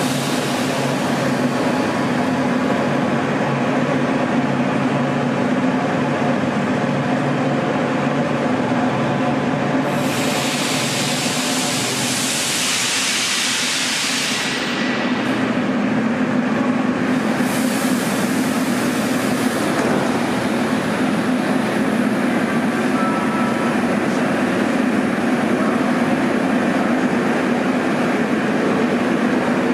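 Class 81 (Metrowagonmash) Soviet-built metro train running into the platform and stopping, with a steady hum throughout. About ten seconds in comes a loud hiss of compressed air lasting several seconds, then a second, shorter hiss a few seconds later.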